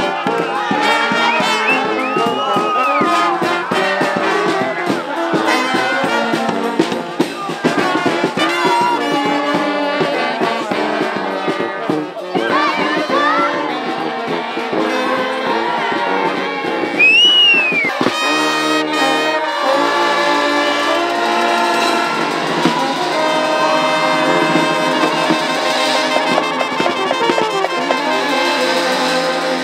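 Marching brass band playing an upbeat tune, with trombones and other brass over a drum beat; the music shifts to a different passage about eighteen seconds in.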